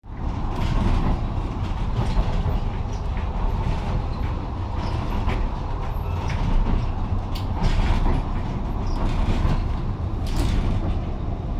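Steady low rumble of a steam train's passenger carriage in motion, heard from inside the coach, with scattered clicks and creaks from the carriage body.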